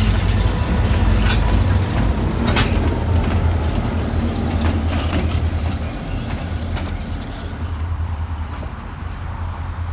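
Freight train rolling by with a steady low diesel-locomotive rumble and a few sharp clanks from the cars, growing slightly fainter over the last few seconds.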